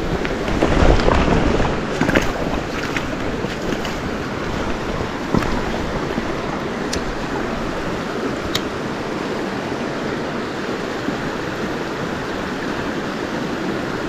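Steady rush of a small creek's flowing water close to the microphone. About a second in, a short low rumble of wind hits the microphone, and a few faint ticks come over the water later on.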